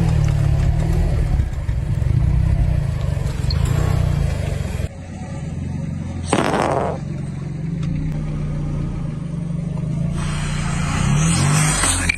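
Car engine running as the car rolls slowly over objects, with a short, loud crunch about six seconds in and a longer stretch of crackling noise near the end as things are crushed under the tyres.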